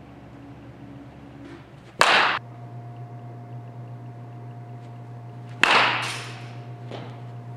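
Two sharp cracks of a baseball bat hitting pitched balls, about three and a half seconds apart, the second followed by a fainter knock, over a steady low hum.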